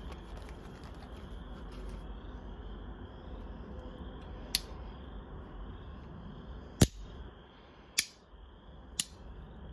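Four sharp clicks in the second half from handling the RoverTac multitool's folding knife, the second click the loudest, over a faint steady background.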